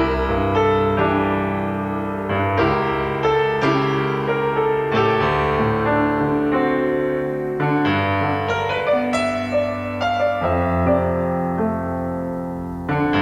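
Background music: solo piano playing a slow, gentle melody over sustained chords.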